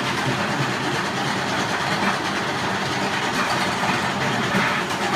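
Floor grinding machine running steadily on a slate floor, grinding down the lippage, with a faint steady hum under the grinding noise.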